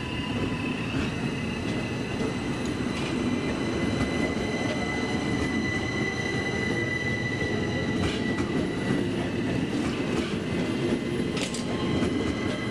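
Zentralbahn Class 160 narrow-gauge electric multiple unit running past: a steady rumble of wheels on rail with a thin, steady high whine over it, and a few light clicks from the wheels.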